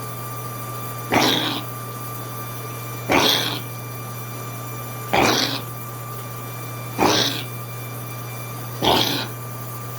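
A pet coughing in short hacks, five of them about two seconds apart, each lasting about half a second. A steady hum runs underneath.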